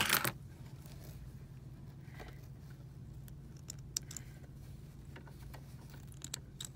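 Thread snips clicking shut a few times as they trim loose embroidery threads, with a short rustle of fabric handling at the start, over a steady low hum.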